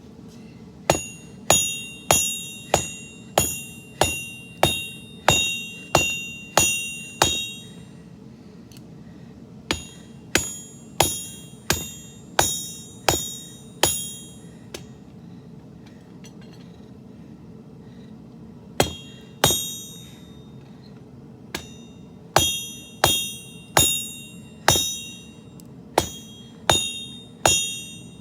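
Hand hammer striking a sword blade on an anvil during forging. The blows come at about one and a half a second in several runs with short pauses, and each gives a bright metallic ring that dies away, over a steady low roar from the propane forge.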